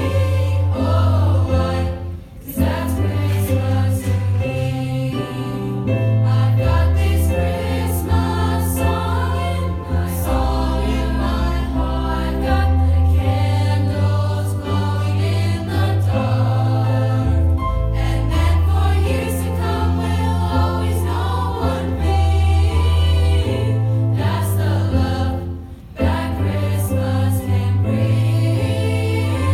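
High school choir singing in harmony over low held notes, with two short breaks in the sound.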